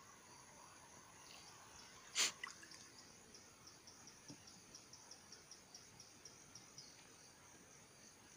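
Near-quiet river ambience. One short, sharp sound about two seconds in, then faint, even high-pitched ticking about four to five times a second that stops near the end.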